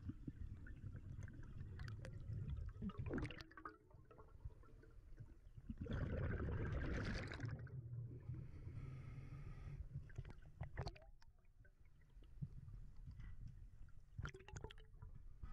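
A scuba diver's regulator breathing, heard underwater: a loud rush of exhaled bubbles about six seconds in, then a hissing inhale, over a steady low rumble of water, with scattered clicks.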